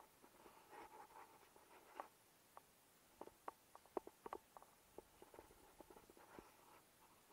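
Faint scraping and a quick run of small clicks and taps, densest about three to four seconds in: a climber's hands and gear moving against the rock face.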